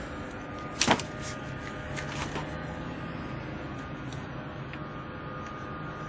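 A sharp click about a second in, then a few lighter clicks and scrapes, as a VVT oil control valve is wiggled and worked out of its bore in the engine's valve cover. A steady hum runs underneath.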